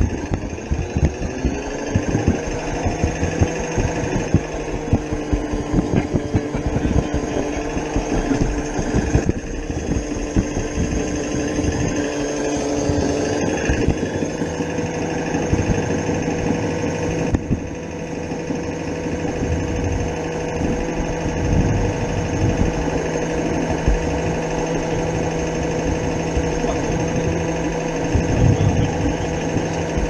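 16mm-scale live steam garden locomotive running under way, its exhaust beats coming as a rapid, continuous throbbing rhythm, heard from on board.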